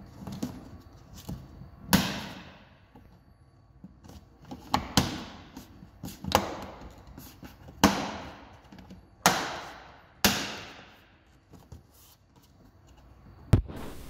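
Hard plastic parts of a BMW i3's charging-socket assembly being handled and pushed into place: a string of sharp clicks and knocks, about one every one to two seconds, each fading out over about half a second.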